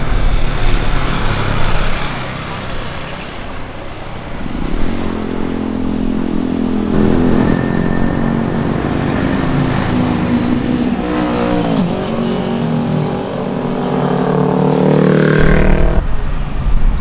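Sport motorcycle engines passing through a bend, rising and falling in pitch as the riders work the throttle and gears, with a sharp drop in pitch about twelve seconds in. A loud rushing sound comes first, and the sound changes abruptly near the end.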